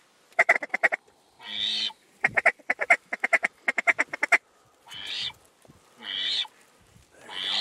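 Duck call imitating a hen mallard, blown close by: fast runs of short quacks in the first half, then long drawn-out quacks spaced about a second apart, calling to circling mallards.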